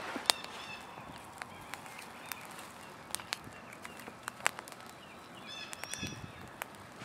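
Kindling of thin sticks crackling with sharp, irregular snaps as a small campfire catches. A bird gives a short burst of chirps about six seconds in.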